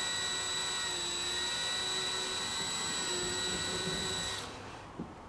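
DeWalt cordless drill running steadily with a high whine as a 9/64 bit bores into a car's plastic front bumper, stopping about four and a half seconds in.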